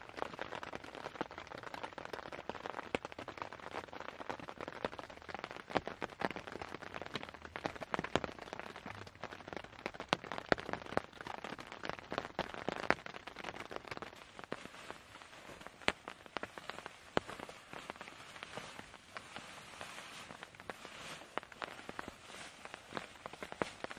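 Rain falling on a tent, heard from inside: a steady hiss with irregular sharp taps of heavier drops striking the fabric, a little lighter in the second half.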